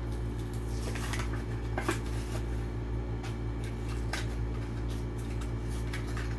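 Plastic blister pack and cardboard backing of a die-cast toy car being handled and opened, giving scattered crinkles and clicks over a steady low hum.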